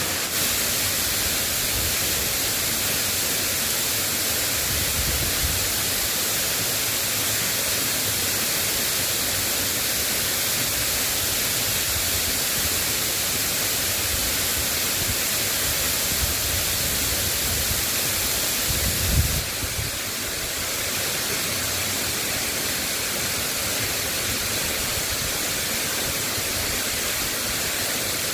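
Steady hiss of light rain falling, with a few low thumps, the biggest about 19 seconds in.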